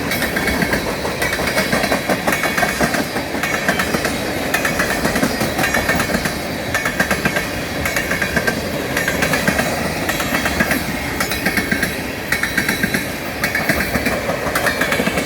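Empty tank cars of a freight train rolling past, their wheels clicking over the rail joints in repeated groups about once a second over a steady rumble.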